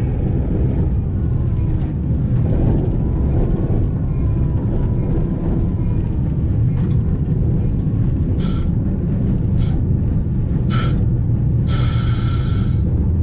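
Diesel locomotive running and rolling along the track, a steady low sound from the cab window, with a few short higher-pitched sounds about eight and eleven seconds in and a longer one near the end.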